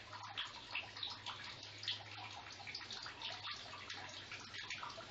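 Faint steady hiss with fine irregular crackling over a low hum: background noise of the room the narration was recorded in.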